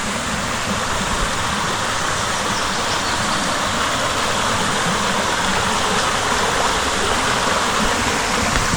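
A stream's water running steadily, an even rushing noise that holds level without a break.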